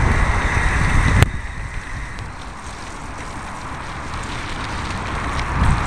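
Wind buffeting the microphone and road noise from a moving bicycle. About a second in, a sharp click; the rushing then drops much quieter and slowly builds again.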